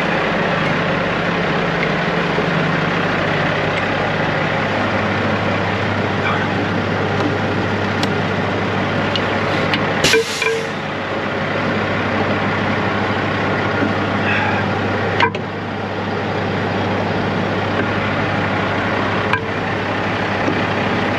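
Semi-truck diesel engine idling steadily. About ten seconds in, a short burst of air hisses as a trailer air-line gladhand is coupled, and a couple of sharp metal clicks follow later.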